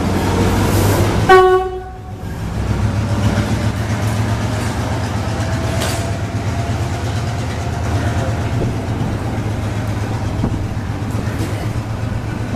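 Diesel locomotive engine running with a steady low hum. About a second in, it gives one short, loud horn blast, the loudest sound. Railway coaches then keep rolling over the rails.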